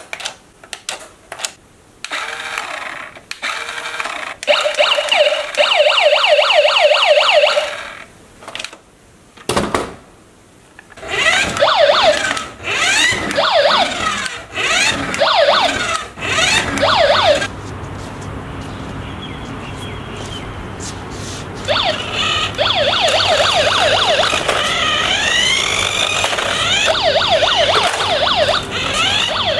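Toy police RC car's electronic siren playing through its small built-in speaker, alternating between a fast warble and slower rising and falling wails. A few sharp clicks come before it, and a steady low hum runs under the later part.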